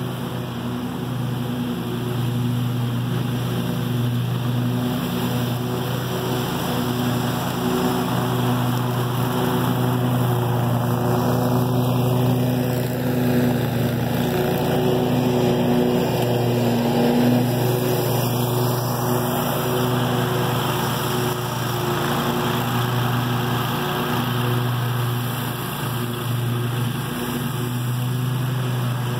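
Scag Tiger Cat II 52-inch zero-turn mower running at mowing speed with its blades engaged: a steady engine drone with an even hum.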